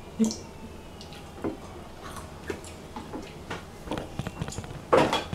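Scattered small clicks and crunches of pomegranate seeds being pried out of the fruit by hand and chewed, with one short louder burst near the end.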